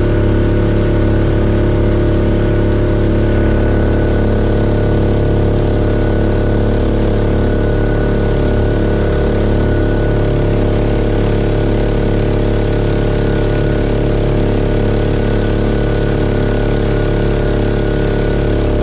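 Mokai jet-propelled kayak's engine running at a steady, unchanging throttle while under way at speed, with water hissing and spraying off the hull.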